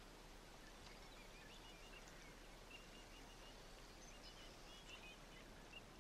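Near silence: quiet outdoor ambience, a faint steady hiss with scattered faint high chirps.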